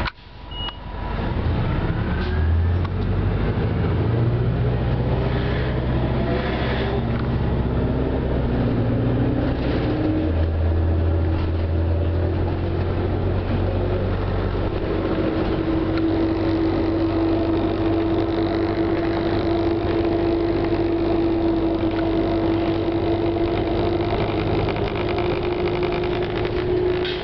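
Inside a 1996 New Flyer C40LF city bus with its Detroit Diesel Series 50G natural-gas engine accelerating: the engine pitch climbs and drops back at gear changes about four and ten seconds in. It then settles into a steady drone with a whine that rises slowly.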